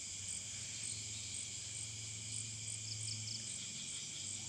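Night insect chorus: crickets trilling steadily, with short high chirps repeating about twice a second. A low steady hum runs beneath and fades near the end.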